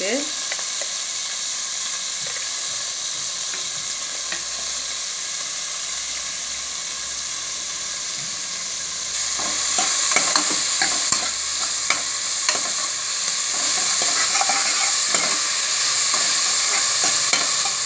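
Chopped onions sizzling in oil in a pressure-cooker pot as they are sautéed. About halfway through the sizzle gets louder as a metal ladle starts stirring, with repeated scrapes and clinks against the pot.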